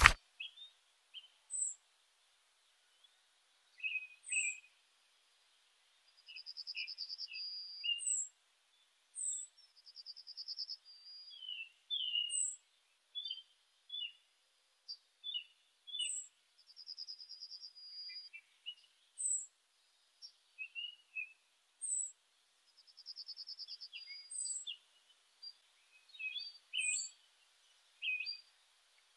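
Several birds singing: short high chirps repeating every second or two, mixed with lower twittering notes, and a buzzy trill of about a second heard four times.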